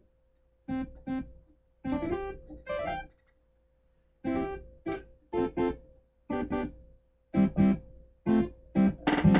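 Arturia MiniFreak synthesizer playing a run of short, plucky notes, starting about a second in and growing busier toward the end, over a faint steady held tone.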